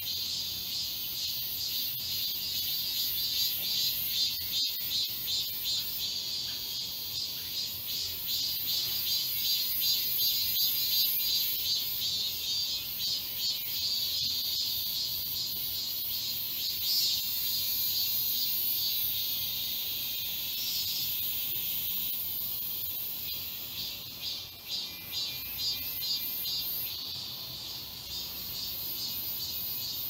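A chorus of cicadas singing in the trees: a dense, high buzzing that pulses rapidly and swells and eases slightly in loudness.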